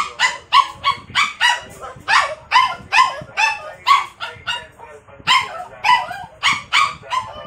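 Small poodle barking rapidly and insistently, about three sharp barks a second with a short pause a little after the middle; the owner puts the barking down to jealousy of a stuffed toy.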